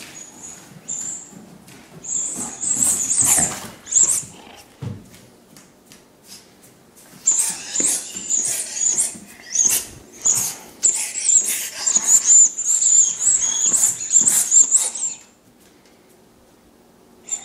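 A young Doberman chewing a chicken-leg squeaky toy, setting off rapid high-pitched squeaks in runs: a short run about two seconds in, then a long unbroken run from about seven seconds in that stops a couple of seconds before the end.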